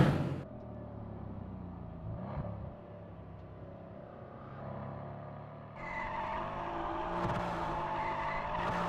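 Mercedes-AMG C 63 S Coupe's twin-turbo 4.0-litre V8 engine, loud at the start and dropping away within half a second to a quieter running note. From about six seconds in it is held under power with the tyres squealing as the car drifts.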